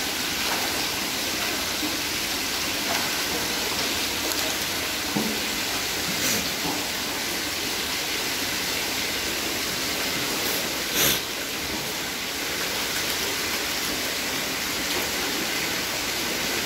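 Water jetting from holes in a PVC pipe and splashing into a lobster holding tank, a steady rushing. A couple of brief knocks cut through it, the louder about eleven seconds in.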